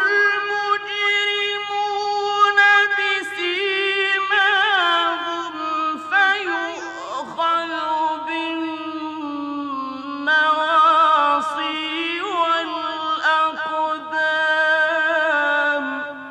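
A male reciter's voice chanting the Quran in the ornate mujawwad style: one long melodic phrase of drawn-out notes with many quick ornamental turns and wavering in pitch, fading out at the end.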